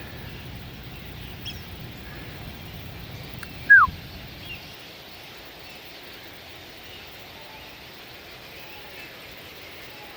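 A bird gives one short, loud call that falls in pitch, nearly four seconds in, over faint scattered chirps from other birds and steady outdoor background noise.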